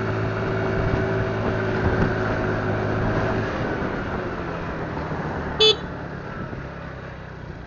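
Motorcycle engine running on the move, with wind and road noise, the hum easing off over the last couple of seconds. A single short horn beep sounds about five and a half seconds in.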